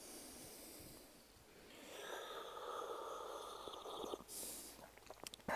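A person sipping and slurping a drink from a thermos cup close to the microphone for about two seconds, then a short breath out. There are a few small clicks, and a sudden louder noise right at the end.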